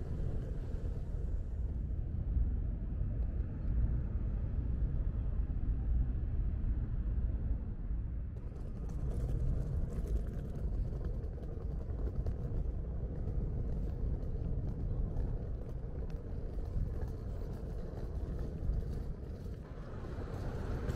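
Outdoor street ambience: a steady low rumble of traffic and air, with faint light clicks in the second half.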